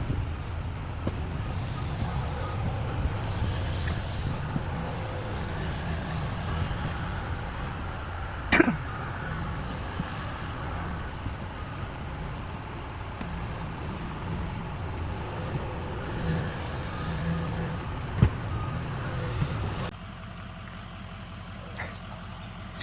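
A truck engine running with a steady low rumble. A sharp clack with a falling squeal sounds about a third of the way in, a short knock comes later, and the rumble drops off sharply near the end.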